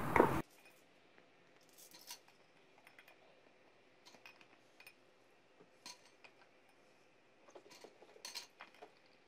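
Mostly near silence after a low background noise cuts off abruptly just after the start, with a few faint light clicks and taps as milk-dipped tea biscuits are set down on a plastic tray.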